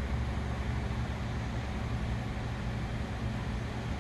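Steady background hum and hiss, unchanging throughout, with no distinct events.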